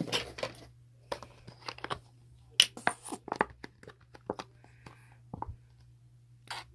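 An irregular run of short crackles, clicks and crinkling, like something being handled, crumpled or torn, over a steady low hum.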